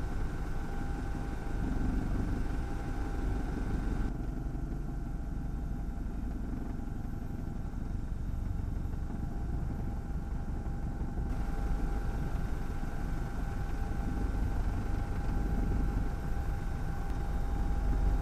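Helicopter engine and rotor noise: a steady low rumble with a steady whine, the high hiss dipping for several seconds in the middle.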